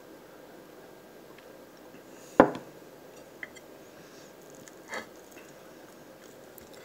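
A drinking glass set down on the table with one sharp knock about two and a half seconds in, then a faint click and, about five seconds in, a short, softer clatter of a fork on the plate, over faint room hiss.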